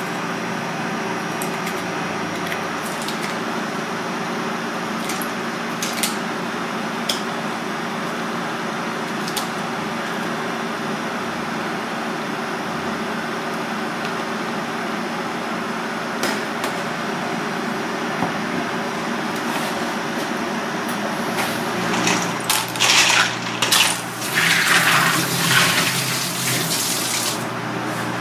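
Water and ice sloshing and splashing in a stainless-steel bowl as a hand swirls and rinses in it, in irregular bursts for about five seconds starting around 22 seconds in. Before that, a steady background hum with a few faint clicks of a knife against a cutting board.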